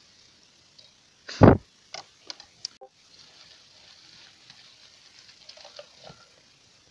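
Homemade berry scoop with bicycle-spoke tines being combed through bilberry bushes: leaves and twigs rustling and scraping against the spokes, with small clicks. A loud thump comes about one and a half seconds in, followed by a few sharp clicks.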